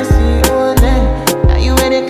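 Background music: an Afrobeats-style pop song with a steady beat and deep bass.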